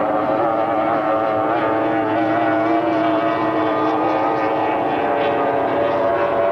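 Racing hydroplane engines running flat out as the boats speed past, a steady high-revving drone whose pitch wavers slightly.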